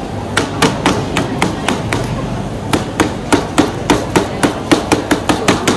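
A cloth-wrapped mallet is pounding skewered grilled bananas flat on a plastic cutting board. The blows are quick and even, about four a second, with a short pause about two seconds in.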